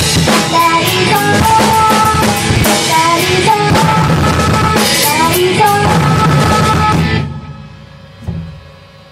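A band playing loudly on a full drum kit with bass drum and snare, under a melodic line, until the song stops about seven seconds in.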